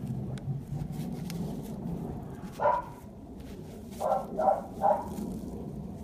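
A dog barking: a single bark a little before halfway, then three quick barks in a row near the end.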